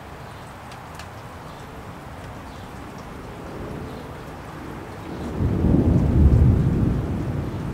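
Light rain falling steadily with scattered drop ticks, then a roll of thunder comes in about five seconds in, swelling to a deep rumble and fading over about two seconds.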